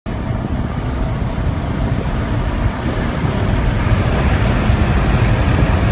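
Jaguar XF at speed heard from inside the cabin: a steady low rumble of engine, tyres and road, with wind noise over it, slowly getting a little louder.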